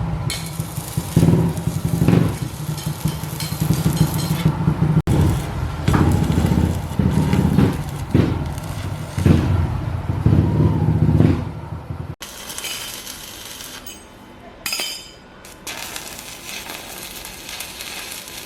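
Metal fabrication noise: welding crackle and sizzle with clatter of steel parts, pulsing about once a second, then a quieter hissing stretch after a sudden change about two-thirds through.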